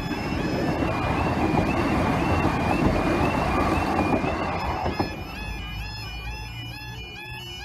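A passenger train passing over a level crossing: a loud rushing of wheels and engine that builds and stops sharply about five seconds in. Under it the crossing's warbling yodel alarm repeats throughout, sounding while the barriers are down.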